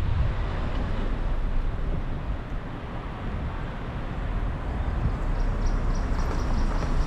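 Road noise from a car driving on a motorway: a steady rumble of tyres and wind that eases slightly and builds again, with a faint quick ticking, about three a second, near the end.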